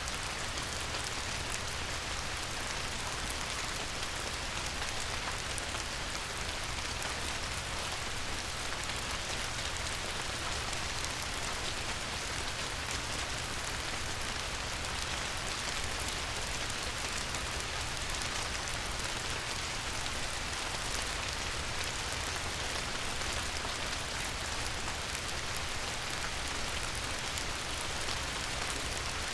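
Light rain falling on a river: a steady hiss of rain with many fine individual drop ticks and a low steady rumble underneath.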